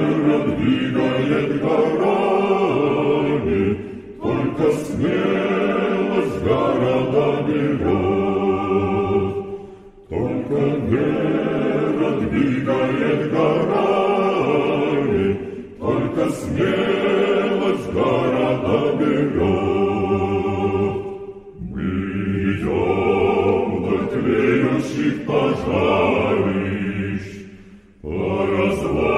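Choir singing a Russian military march line by line, with a short breath between phrases about every six seconds; the old recording sounds dull and narrow.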